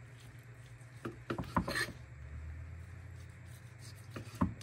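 A knife slicing through a rack of smoked ribs on a wooden butcher-block board, with scraping and cutting strokes about a second in and a single sharp knock near the end. A steady low hum runs underneath.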